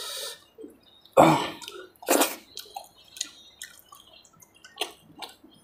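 Close-miked wet eating sounds from hand-eating hilsa fish in mustard curry: irregular smacks and squelchy clicks. The loudest come about a second in and again about two seconds in, with smaller clicks scattered after them.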